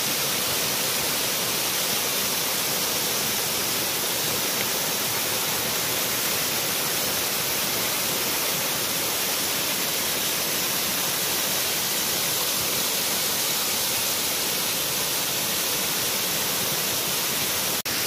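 Waterfall cascading down stepped rock ledges: a steady, even rush of falling water.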